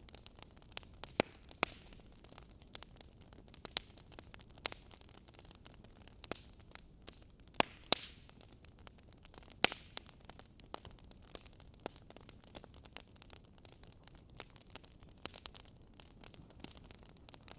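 Wood fire crackling in a fireplace: irregular sharp pops and snaps, a few louder ones among them, over a faint steady hiss.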